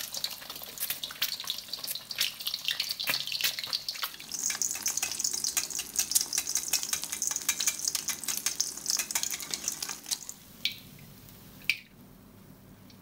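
Egg deep-frying in hot oil in a wok, crackling and spitting with a steady hiss. The sizzle dies down about ten seconds in, followed by a single sharp click.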